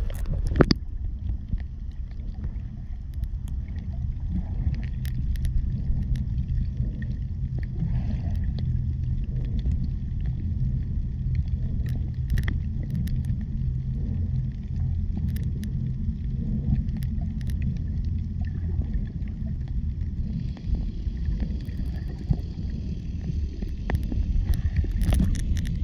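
Underwater sound picked up by a submerged camera: a low, steady rumble of moving water with scattered faint clicks. About half a second in, a sharp splash as the camera goes under from the surface.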